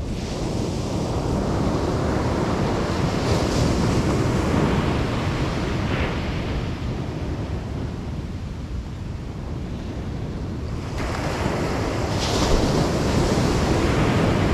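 Ocean surf breaking on a beach, the rush of noise swelling twice, a few seconds in and again near the end, over a steady low rumble of wind on the microphone.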